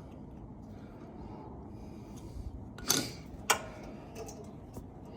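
Two sharp clicks about three seconds in, half a second apart, with a few fainter ticks around them: small hardware being handled while a wire terminal and its insulated nut are fitted on a refrigerator relay box. Low steady background noise underneath.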